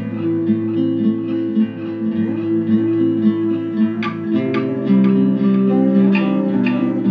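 Instrumental background music: plucked notes over held low tones, with sharper plucked attacks from about four seconds in.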